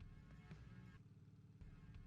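Near silence: a faint low hum with a few faint ticks.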